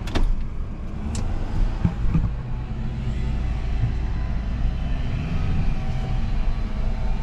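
Tow truck engine running with a steady low hum, heard from inside the cab. A couple of sharp clicks at the start and again about a second in.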